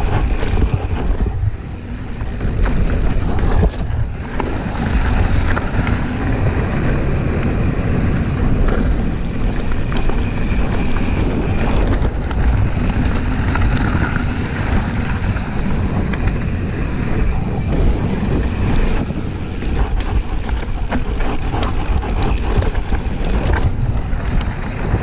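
Wind rushing over the microphone while a downhill mountain bike runs fast down a dirt trail, with tyres rumbling over soil and stones and the bike rattling and knocking over bumps.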